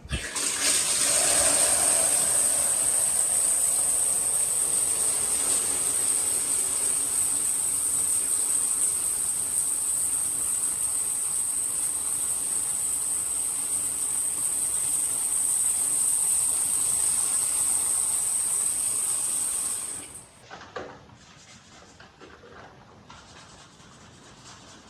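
A steady hissing rush, strongest in the high treble, that starts abruptly and cuts off about twenty seconds in, followed by a few faint knocks and rubs.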